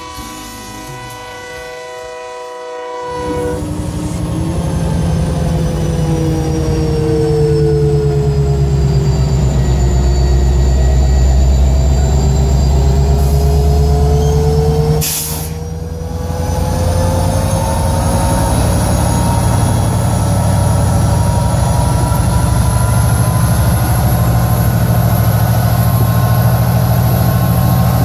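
Diesel freight train passing close by, its horn sounding a steady chord for the first few seconds. After an abrupt cut, passing locomotives give a loud, steady low engine rumble, with long whining tones that slide slowly down and back up in pitch. There is a brief drop in level about halfway through.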